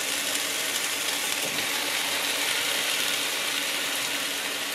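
Oil sizzling steadily in a hot frying pan.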